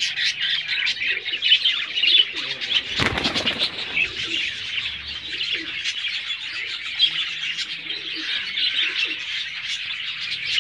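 Steady chorus of small birds chirping, with pigeons cooing low underneath at intervals. About three seconds in comes a brief rustling burst, like wings flapping.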